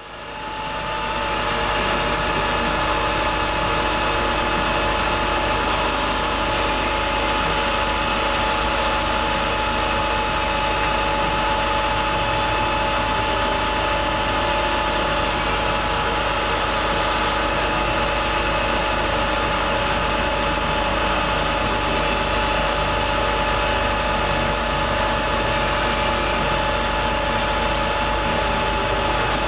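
Vehicle engine idling steadily, with a steady whine over it.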